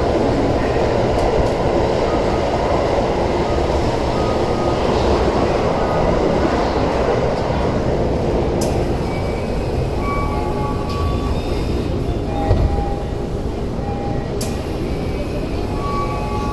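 Keio 9000 series train heard from inside the car as it brakes into a station: the rumble of running on the rails dies away over the first half. Short steady electrical tones follow as it slows to a stop, and a sudden hiss comes near the end as the doors open.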